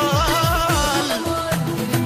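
Background music: an ornamented, wavering melody over a steady beat of deep bass hits that drop in pitch.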